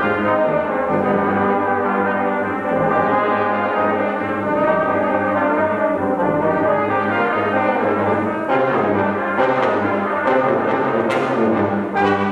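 Brass quintet of two trumpets, French horn, trombone and tuba playing a classical piece together, with sharp, short note attacks in the last few seconds.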